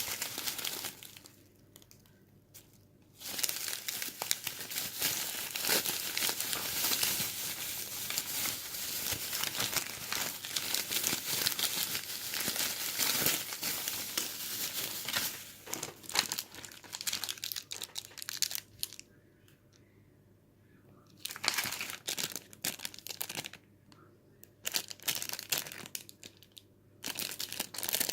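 Packaging crinkling and tearing as packages are handled and opened by hand, in long stretches broken by a few short pauses.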